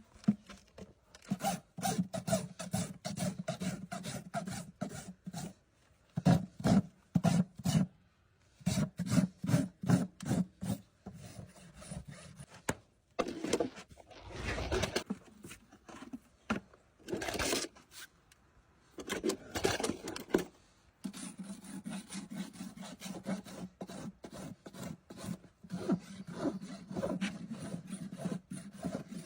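Farrier's hoof rasp filing a horse's hoof wall, in runs of quick back-and-forth strokes with short pauses between runs.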